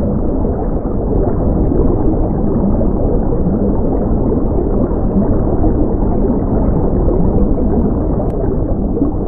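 Underwater ambience: a steady, muffled rush and gurgle of moving water, with no distinct calls or clicks.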